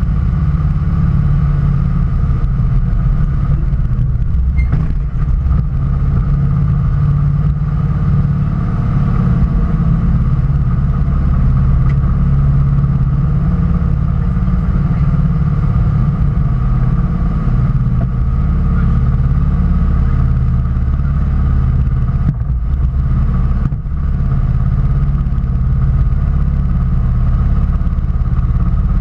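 An engine idling steadily with a loud, even low rumble.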